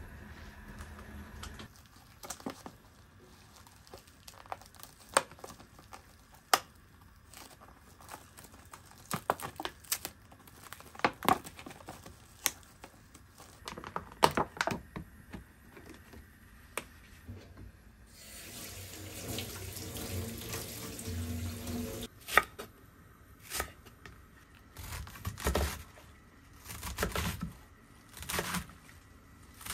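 Plastic cling film crinkling and tearing as it is peeled off a tray of fish, in many small crackles. A little past halfway a tap runs into the sink for about four seconds, and near the end a kitchen knife cuts through napa cabbage on a wooden board in a few separate strokes.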